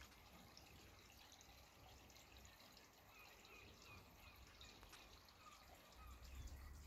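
Near silence: faint outdoor background noise, with a low rumble swelling near the end.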